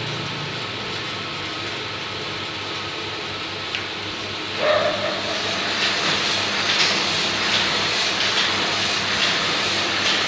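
Large-format banner printer running as it prints, a steady mechanical whir. About four and a half seconds in it grows louder and settles into a regular pulse about twice a second.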